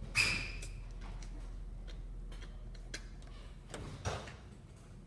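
Tools and parts clinking and clicking as a hand mixer is worked apart: a sharp clink with a brief ring about a quarter second in, then scattered light clicks and a couple of knocks around the four-second mark.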